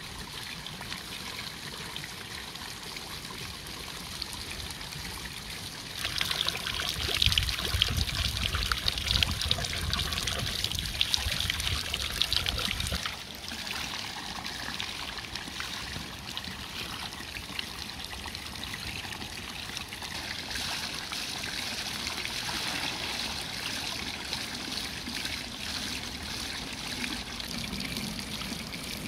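Spring water pouring from a stone fountain's spout into its basin, a steady trickle, with fresh herbs being rinsed under the stream. The splashing is louder for several seconds in the middle, then settles back to the even trickle.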